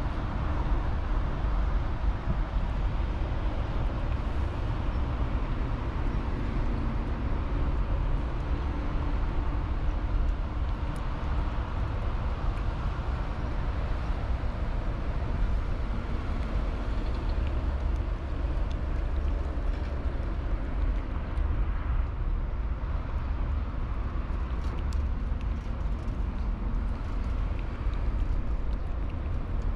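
Steady low rumble of city traffic, with faint wet clicks of a cat licking and chewing soft food from a metal dish scattered through it, more of them in the second half.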